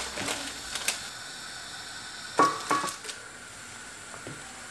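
Baking paper rustling and a heavy nonstick pan knocking as a lahmacun is laid into it on the hob, with one short metallic clatter about two and a half seconds in, over a faint steady hiss.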